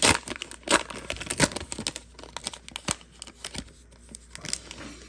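A wax-paper trading card pack being torn open and crinkled: a run of sharp paper crackles, loudest in the first second and a half and thinning out toward the end.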